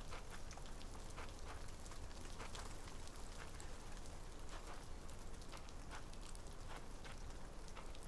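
Steady rain falling, with many separate drops ticking sharply through the even hiss.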